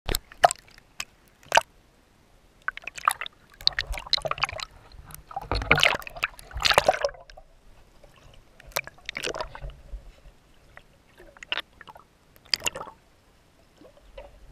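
Sea water splashing, sloshing and gurgling around a waterproof action camera as it moves at and just below the surface of small waves. Sharp splashes and bubbly bursts come irregularly, loudest about halfway through.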